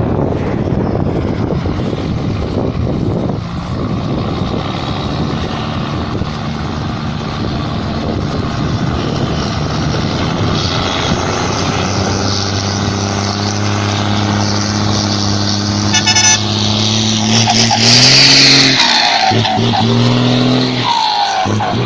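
Volkswagen Constellation truck's diesel engine running with a rough, steady rumble that settles into a clear steady note about halfway through. Near the end the pitch rises briefly, together with a short, loud hiss of air.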